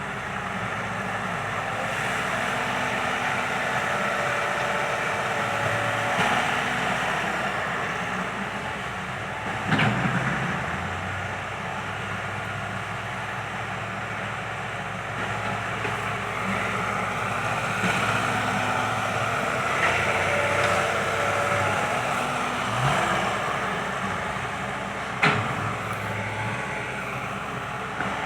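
Kobelco SK120 Mark III excavator's diesel engine running under working load, its pitch rising and falling as the hydraulics work, with two sharp clanks, one about ten seconds in and one near the end.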